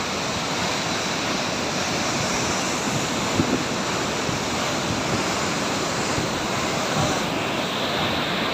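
Steady, even rush of water during heavy monsoon rain.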